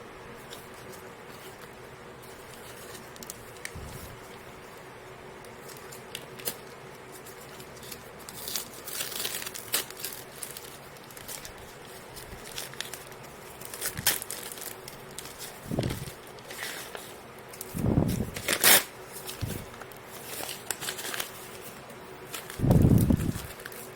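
Parcel packaging being handled and torn open: crinkling and tearing that starts about eight seconds in, with a few dull thumps from the package being handled.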